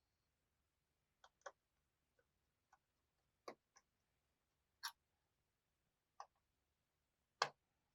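Faint, scattered ticks and clicks of a small screwdriver working the screws on the metal RAM shield cover of a Lenovo Ideapad 330S laptop, with one louder click near the end.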